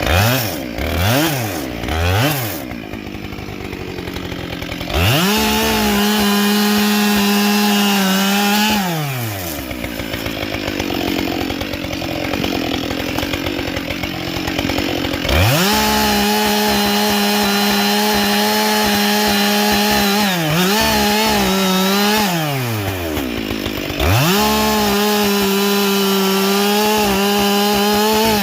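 Husqvarna 572 XP two-stroke chainsaw with a 20-inch bar and carbide chain, cutting wood. It gives two quick throttle blips, then three runs of several seconds each at a steady full-throttle pitch, dropping back to idle between them. The pitch sags briefly in the middle of the second run.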